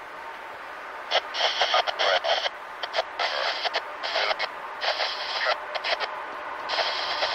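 A radio transmission, most likely a railfan's scanner, comes through as choppy, crackling bursts starting about a second in, cutting in and out every second or so.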